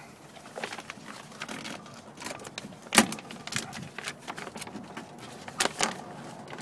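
Plastic door moisture barrier crinkling and crackling as it is peeled by hand off sticky adhesive, with a sharp click about three seconds in and a few more clicks near the end.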